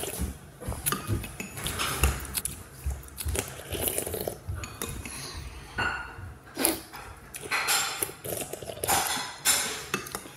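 Noodles being slurped off spoons and chewed, with scattered clicks and clinks of plastic spoons against a bowl.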